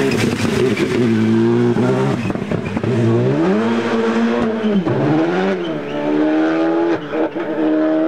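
Rally car engine revving hard as the car passes and pulls away, its pitch climbing and dropping with each gearshift, with a few sharp cracks about seven seconds in.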